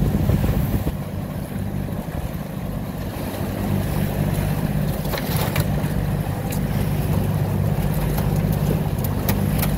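A boat engine running steadily under way, with water rushing past the hull and wind. A few sharp knocks come about five seconds in and again near the end.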